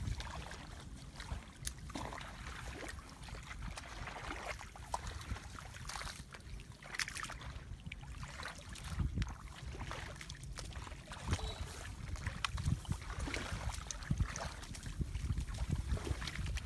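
Wind rumbling on the microphone, with irregular sloshing of feet wading through shallow muddy water and brushing through rice grass.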